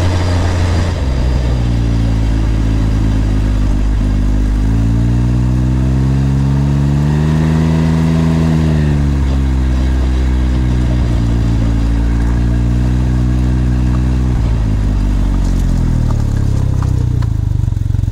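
Exhaust note of a Can-Am Ryker 900's Rotax three-cylinder engine, heard right at the tailpipe while riding slowly. The note drops about a second in, swells and falls again over a few seconds, then settles lower and steady near the end.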